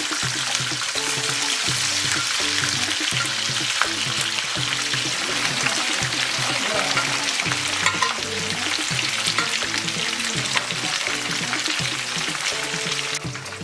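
Tiger prawns frying in hot oil in a non-stick pan: a steady, dense sizzle full of small crackles and pops from the bubbling oil. The sizzle drops away suddenly near the end.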